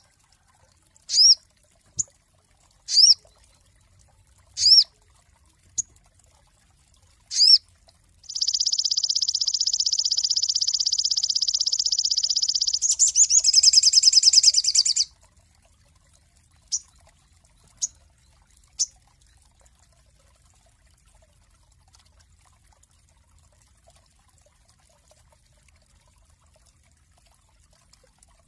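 Sogon songbird singing: several separate high whistled notes, one every second or two, then a long fast trill of about seven seconds that quickens near its end, followed by three short chips.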